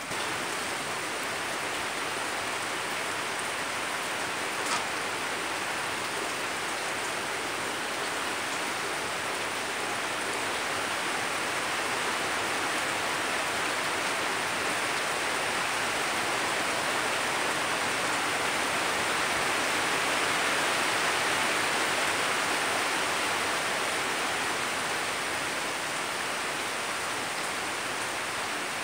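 Steady hiss of noise that swells slightly past the middle, with one faint click about five seconds in.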